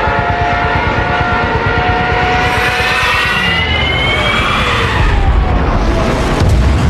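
Junkers Ju 87 Stuka dive bomber in a dive: engine and siren wail, with steady tones at first and then a rising pitch, giving way to a heavy low rumble about five seconds in.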